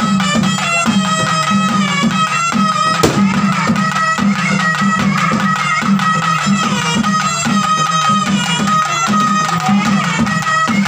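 Traditional South Indian temple-festival music: drums keep a quick, steady beat under a sustained, slightly wavering high melody line. A single sharp knock cuts through about three seconds in.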